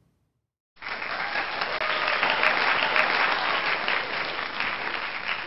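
Applause, a dense steady clapping that starts about a second in and stops abruptly near the end.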